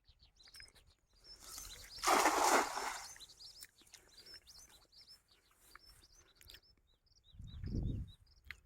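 Small birds chirping over and over throughout. A loud rushing noise swells and fades about two seconds in, and a low rumble follows near the end.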